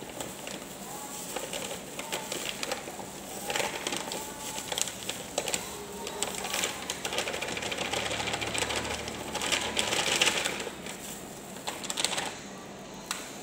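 Foil bag of powdered ice cream mix crinkling and rustling as it is tipped and shaken over a stainless steel pot, with the powder pouring in. The rustling is densest from about four to ten seconds in.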